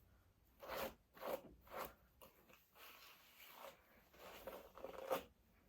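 Short rustling, scraping handling noises: a quick run of three strokes about a second in, softer rustles after, and a sharper one near the end.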